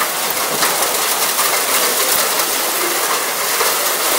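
Torrential wind-driven rain hissing steadily during a severe thunderstorm, with a constant patter of sharp ticks from drops striking nearby surfaces and a few faint short squeaks.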